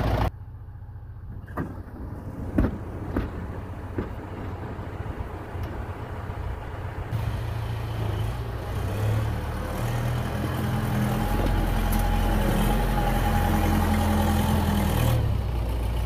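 Kubota M6040 tractor's diesel engine running as the tractor pulls out of the shop, growing louder over the second half and easing off near the end. A couple of knocks sound about two seconds in.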